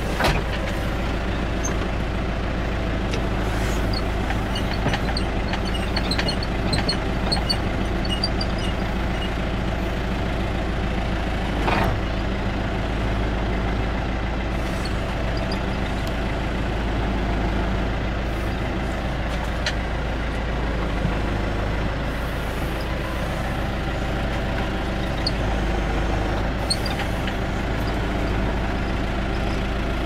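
Caterpillar backhoe loader's diesel engine running steadily, heard from inside the operator's cab, with a sharp click about twelve seconds in.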